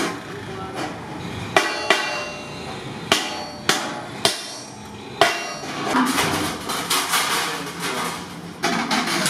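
Hand hammer striking galvanized sheet iron for a milk can: sharp, irregular blows that ring like tin. About six seconds in there is a spell of quicker, rattling clatter, and then single blows again.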